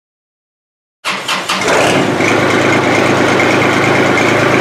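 Kubota L2501 compact tractor's three-cylinder diesel starting about a second in: a brief crank, then it catches and settles into a steady idle.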